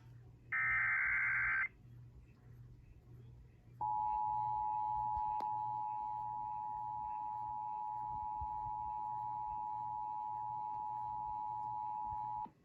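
Emergency Alert System activation tones on a broadcast. A roughly one-second burst of digital SAME header data comes first. After a short gap, the two-tone EAS attention signal (853 and 960 Hz) holds steady for about nine seconds and then cuts off abruptly.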